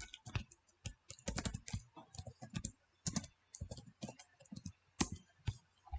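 Computer keyboard being typed on: quick, irregular keystrokes with short pauses between runs.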